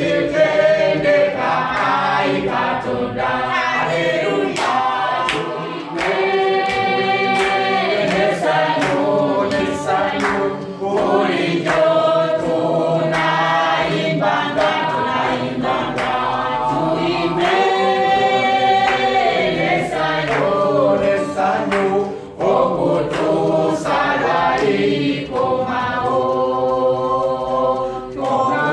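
A group of voices singing a worship song together in chorus, with long held notes and a sharp beat keeping time.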